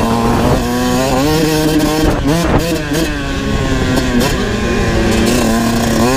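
Kawasaki KX 125 two-stroke dirt bike engine being ridden hard, revving up and dropping back several times as the throttle is worked and gears change.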